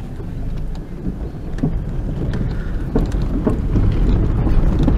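Car rolling over a gravel dirt road, heard from inside the cabin: a steady low rumble of tyres and engine with scattered small clicks of gravel under the tyres, getting a little louder toward the end.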